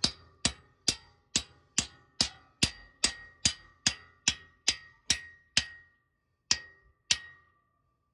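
Hammer blows driving a half-inch wedge anchor bolt down into a hole drilled in concrete, striking steadily about twice a second with a short metallic ring on each hit, then two slower final blows near the end. As the bolt is driven down, its wedge expands to lock it in the concrete.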